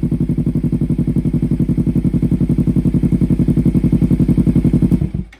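Kawasaki Ninja 300's parallel-twin engine idling steadily through an SC Project aftermarket exhaust, with an even pulsing note, then shut off so that it stops abruptly about five seconds in.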